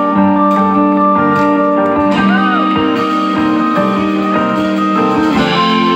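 Instrumental live band music: guitar playing over steady held chords, with no singing. A short bending note comes in about two seconds in.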